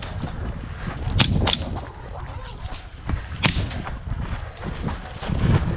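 A few scattered sharp snaps of airsoft gunfire, the two loudest about a second in and near the middle, over low rumbling noise of movement.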